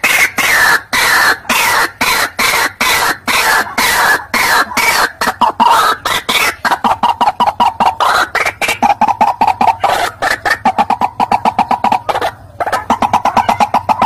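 White-breasted waterhen's 'ruak-ruak' call, played as a lure: a loud, rapid string of repeated notes that goes on almost without pause, with a short break about twelve seconds in.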